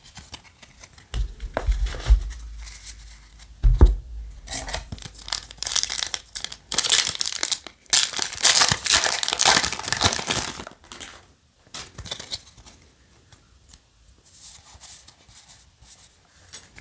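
Foil booster pack of Yu-Gi-Oh! trading cards torn open by hand, the wrapper ripping and crinkling loudest through the middle, after a few dull knocks near the start.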